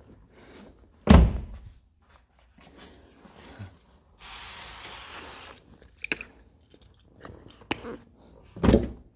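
Two heavy thunks, the first about a second in and the loudest, the second near the end, with an aerosol spray can hissing steadily for about a second and a half in the middle and a few small clicks and taps between.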